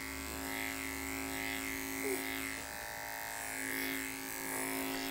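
Electric dog grooming clippers with a comb attachment running with a steady buzzing hum as they are worked through a puppy's coat.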